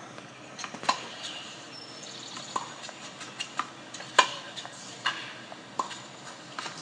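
Tennis racket striking the ball on one-handed backhands, a series of sharp pops with lighter knocks between them; the loudest hit comes about four seconds in.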